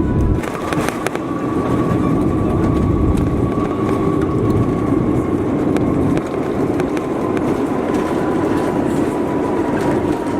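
Airbus A350-941 heard from inside the cabin on the ground after landing: a steady rumble and rattle of the wheels rolling over the runway. An engine whine slowly falls in pitch under it, with a few sharp clicks about half a second in.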